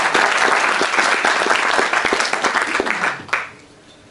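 Audience applauding: dense clapping that dies away about three seconds in.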